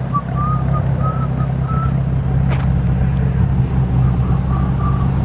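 Car engine running with a steady low drone, with short, faint high-pitched tones coming and going over it.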